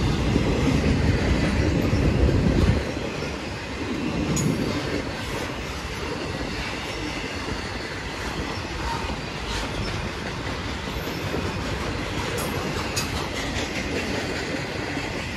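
Intermodal freight train cars rolling past close by, wheels clattering over the rail joints, with a few faint high wheel squeals. A heavy low rumble drops off suddenly about three seconds in, leaving a lighter steady rolling noise.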